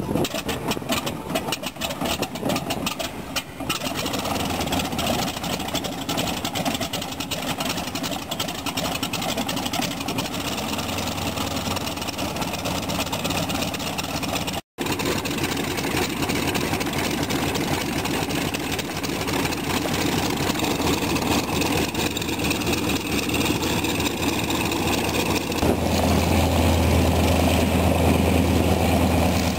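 Yak-52's nine-cylinder M-14P radial engine starting with a puff of exhaust smoke, firing unevenly for the first few seconds, then running steadily at idle. Near the end a second Yak-52's radial engine comes in louder, with a strong steady low hum.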